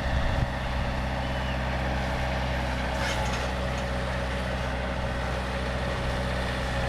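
Tractor engine running steadily with an even, unchanging drone.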